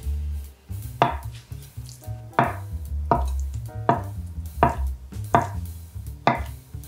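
Chef's knife chopping through a block of tofu and knocking on a wooden end-grain cutting board, about seven cuts at a steady pace of roughly one every two-thirds of a second.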